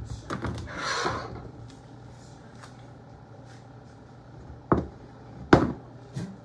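Kitchenware being handled on a counter: a short rubbing rustle in the first second or so, then two sharp knocks near the end and a lighter third knock.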